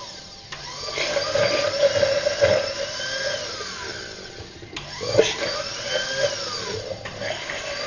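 Stainless-steel countertop blender running, puréeing a thick green herb-and-anchovy sauce. Its motor cuts out briefly a little before five seconds and then starts again.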